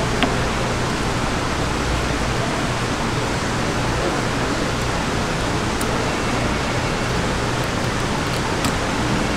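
Steady rushing background noise with a low hum underneath, and one sharp click just after the start with a few faint ticks later, as a knife works along a flounder on a plastic cutting board.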